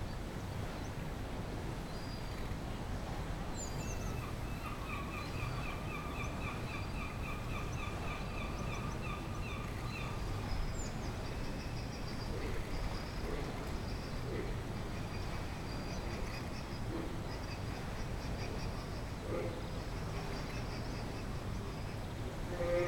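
African penguins calling during mating: a fast stuttering call of rapidly repeated short pulses from about four seconds in, lasting some six seconds, followed by a higher-pitched pulsed chatter. A steady low rumble runs underneath.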